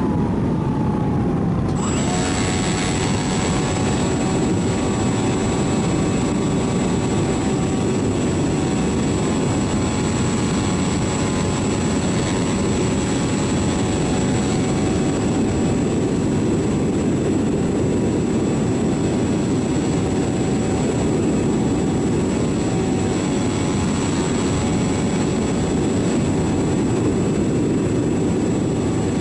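Radio-controlled model airplane in flight: the motor and propeller hum steadily under a heavy rush of wind over the microphone. The motor's pitch falls over the first second, then holds steady.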